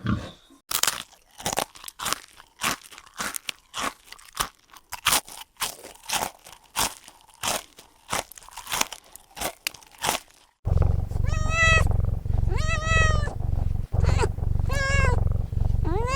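Sharp crunching clicks, several a second, for about ten seconds, then a cat meowing about five times over a low steady hum.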